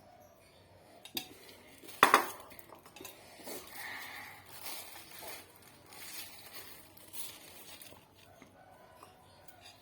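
Eating utensils clinking against a bowl or plate, with one sharp, loud clatter about two seconds in, followed by a run of short, softer noises.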